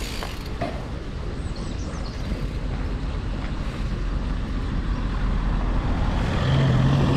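Road vehicle engine growing steadily louder as it approaches, with a steady engine note coming in near the end, over low wind rumble on the microphone.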